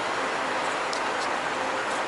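Steady, even rushing noise of trucks at a diesel fuel island, with a few faint light ticks.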